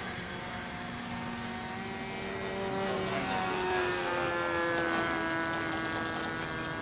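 Engines of several radio-controlled model airplanes running overhead at once, a drone of several pitches. One tone sinks slowly throughout while others slide up and down as the planes pass, and the sound swells a little a few seconds in.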